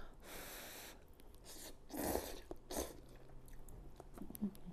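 A person eating hot soup noodles: a short breath blown over the noodles, then two quick slurps about two and three seconds in, with quiet chewing after.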